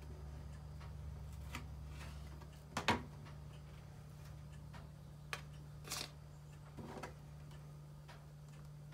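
Knife slicing salami on a plastic cutting board: a few sharp taps and clicks of the blade and fingers on the board, the loudest a quick double tap about three seconds in, over a faint steady low hum.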